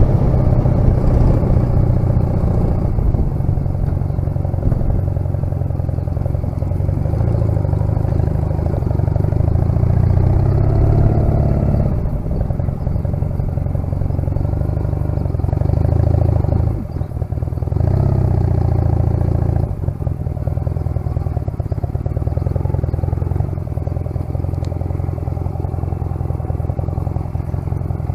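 1996 Honda CMX250C Rebel's parallel-twin engine running at low road speed, its pitch rising and falling with the throttle, with a brief dip in the sound about two-thirds of the way through.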